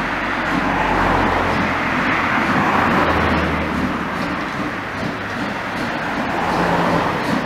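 Narrow-gauge steam locomotive 99 4011-5 working as it pulls away, giving a steady rushing exhaust noise with a low rumble beneath that swells and eases slightly.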